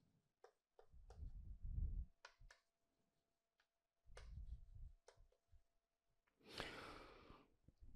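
Quiet chalk strokes and taps on a chalkboard, with low bumps from a handheld microphone being handled. Near the end comes one breathy exhale into the microphone.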